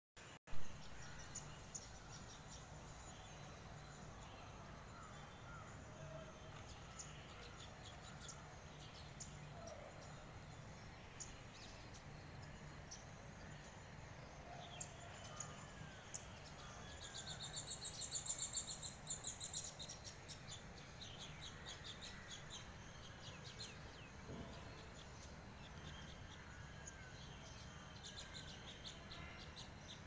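Sparrows chirping in short scattered calls, with a livelier run of rapid chirping about halfway through, over a steady low background hum. A single sharp knock at the very start.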